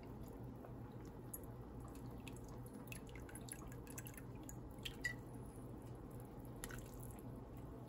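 Pork-bone broth simmering gently in a pot, small bubbles popping now and then in an irregular pattern over a low steady hum.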